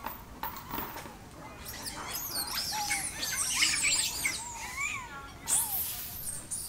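Young long-tailed macaques squealing and chirping: a run of rapid, overlapping high-pitched squeaks that builds from about two seconds in, is thickest a second or two later, and ends with a few lower, bending squeals.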